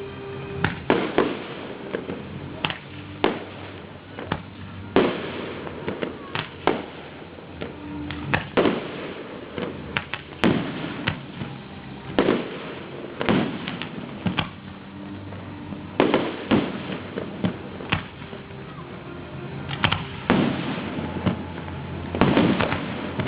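Fireworks display: aerial shells bursting in an irregular series of loud bangs, several a few seconds apart and some in quick clusters, each followed by a trailing rumble.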